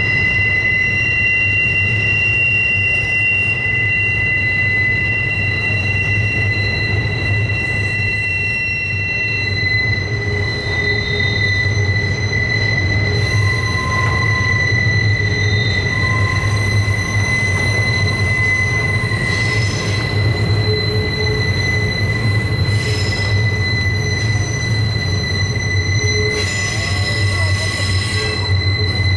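Steel wheels of a slow double-stack intermodal container train squealing against the rail on a tight curve: several steady high-pitched squeals that come and go over the constant low rumble of the cars rolling by.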